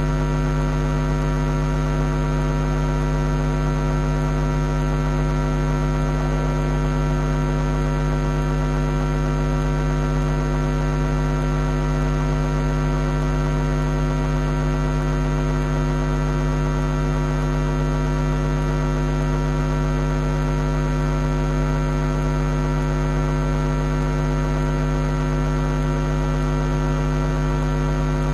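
Steady electrical mains hum with a buzzy stack of overtones, unchanging in pitch and loudness throughout.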